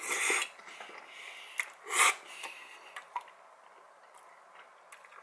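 Close-miked eating of a forkful of pasta: two loud breathy slurps, one at the start and one about two seconds in, with a few light clicks of the fork against the bowl.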